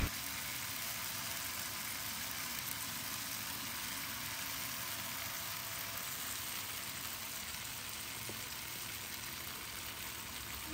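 Masala-coated fish pieces frying in hot oil: a steady sizzle.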